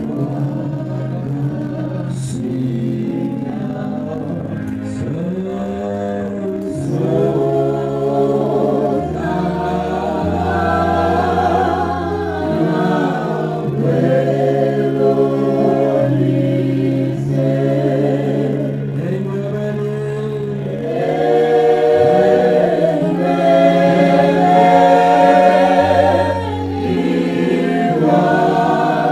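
A gospel worship group of mixed male and female voices singing together through microphones, over sustained low keyboard chords that change every few seconds. The singing swells louder about two-thirds of the way through.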